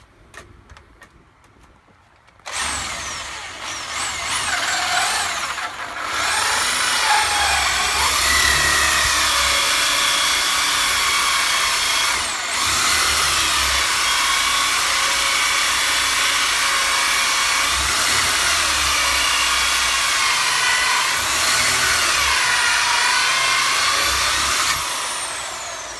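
Electric power drill running on a wood workpiece, starting about two and a half seconds in, its whine sliding up and down in pitch as the speed changes, with a brief dip about halfway and winding down near the end.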